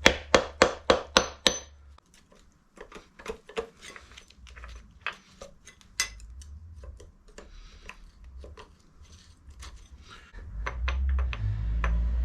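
Hand tools knocking on a motorcycle engine's casing during dismantling: a quick run of six sharp metallic strikes at about four a second, then scattered lighter clinks and knocks, with a low rumble of handling near the end.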